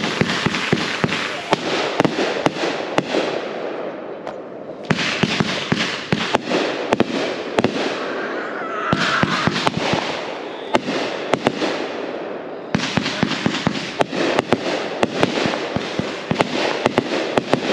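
Consumer fireworks going off: dense crackling packed with sharp pops, in three long volleys broken by brief lulls about four seconds in and again about thirteen seconds in.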